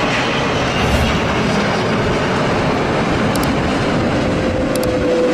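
Jet airliner's engines running at high power, a loud, steady rushing roar, with a faint steady whine near the end.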